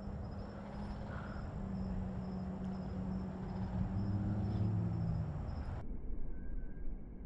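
Insects chirping in a steady, even rhythm over a low rumble of wind on the microphone. Near the end the high chirping drops out and the sound turns duller.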